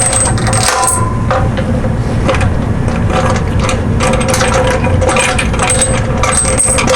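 Metal lid clamps of a steel pressure pot being undone, with repeated metallic clinks and rattles.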